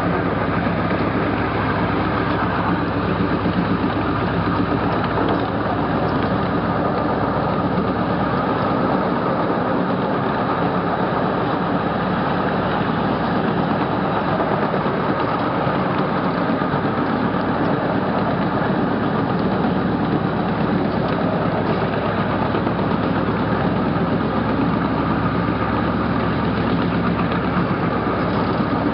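A 12-inch gauge miniature train running steadily along the track, heard from an open riding car: a continuous engine drone mixed with the rumble of the wheels on the rails.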